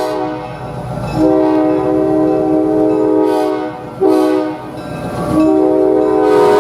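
Nathan K5LA five-chime locomotive air horn sounding a chord in blasts: a long blast, a short one, then another long one, the tail of the grade-crossing long-long-short-long signal.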